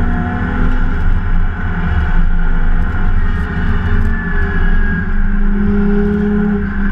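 BMW 325 race car's straight-six engine running hard at racing speed, heard from inside the cockpit, with the engine's pitch shifting as the car drives on and a low rumble underneath.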